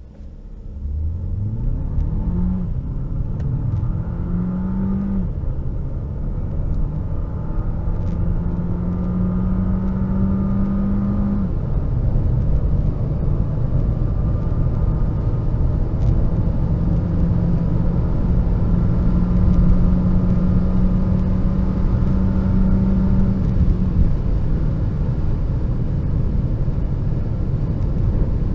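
Renault Captur TCe 155's 1.3-litre turbocharged four-cylinder petrol engine under full-throttle acceleration from standstill, heard from inside the cabin. The engine note climbs in pitch through each gear and drops at four automatic upshifts, about 2, 5, 11 and 24 seconds in, each gear held longer than the last, over growing road and wind noise.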